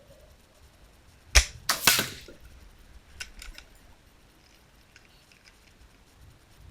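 A single shot from a .22 SMK Syntarg spring-piston air rifle: one sharp crack, followed within about half a second by a couple of smaller sharp cracks. A few faint clicks follow about two seconds in.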